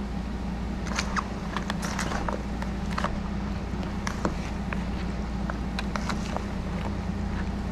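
Metal spoon stirring chopped ceviche in a plastic bowl: irregular light clicks and scrapes of the spoon against the bowl and through the wet mix, over a steady low hum.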